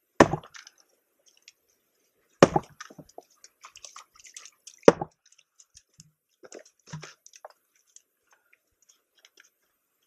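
Axe splitting dry, seasoned logs on a chopping block: three hard strikes about two and a half seconds apart, then a few lighter knocks.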